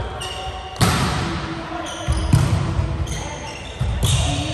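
Volleyball being struck and bouncing during a rally on a wooden gym floor: several sharp smacks, just under a second in, around two seconds in and near the end, each ringing on in the hall's echo. Players' voices call out between them.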